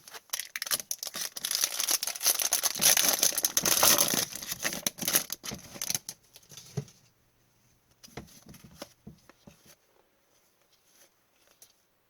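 A hockey card pack's foil wrapper is torn open and crinkled for about six seconds, then the cards are handled with quieter scattered clicks and rustles.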